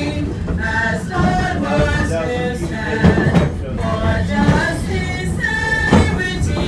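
A small choir singing a song together, with held notes. Two short knocks cut through, about three and six seconds in.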